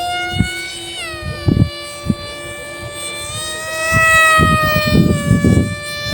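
Emax Eco II 2207 2400KV brushless motor spinning a 6x4 propeller at high throttle: a high whine that drops in pitch about a second in, then holds steady and grows a little louder around four seconds. Irregular low thumps run underneath.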